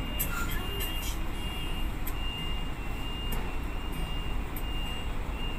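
Heavy vehicle's engine running with a steady low rumble, with a reversing alarm beeping over it at an even pace, about three high beeps every two seconds.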